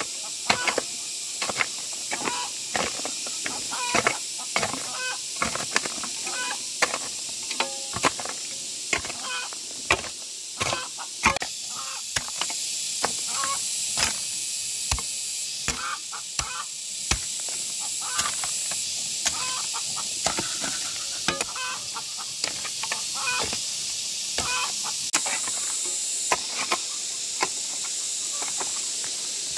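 Chickens clucking, with irregular sharp knocks throughout, some of them loud, over a steady high hiss.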